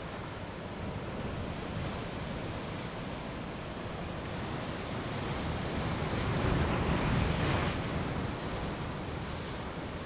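Ocean waves breaking against a rocky shore, a steady wash of surf with one wave swelling louder about six to eight seconds in.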